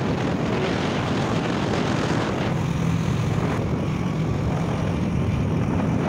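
Steady wind rush on the microphone with the low drone of a vehicle engine, recorded while riding along a road.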